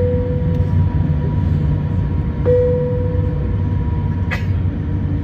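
Steady low drone of an Airbus A350-900 cabin as the aircraft taxis, its Rolls-Royce Trent XWB engines idling. A single-note tone sounds and fades twice, right at the start and about two and a half seconds in, and a brief sharp click comes a little after four seconds.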